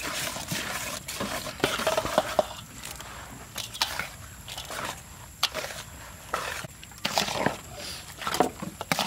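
Wire whisk stirring and scraping through a wet, chunky mix of beaten egg and chopped red bell pepper in a large metal bowl, in uneven strokes.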